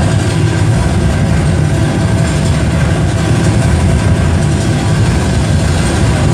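Vietnamese festival drums (trống hội) played in a loud, continuous roll, dense and heavy in the low end, with no separate beats standing out.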